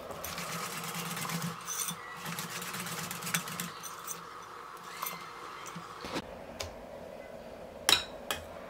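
Wire balloon whisk beating whipped cream and melted chocolate by hand in a ceramic bowl, the wires rattling quickly against the bowl, busiest in the first half. A few sharp clinks follow, the loudest about eight seconds in.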